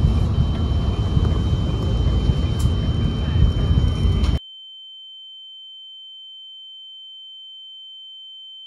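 A loud, deep rumbling noise with a steady high-pitched sine-like tone over it; a little over four seconds in, the rumble cuts off abruptly and only the steady tone is left, quieter.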